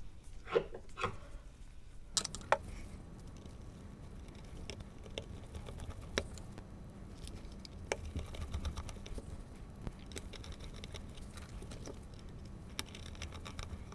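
Screws being driven back into a lamp's housing with a screwdriver: scattered light clicks and ticks of small parts and the tool being handled.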